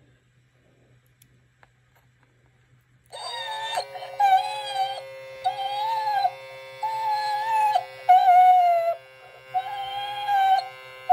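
Gemmy animated mummy dog toy switching on and playing its electronic sound effect through its small speaker: a held droning tone with about seven wavering, howl-like calls of around a second each over it, starting about three seconds in.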